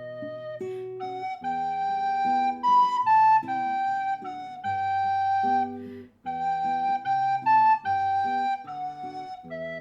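Instrumental intro music: a flute-like melody of held notes over soft chords and a bass line, pausing briefly about six seconds in.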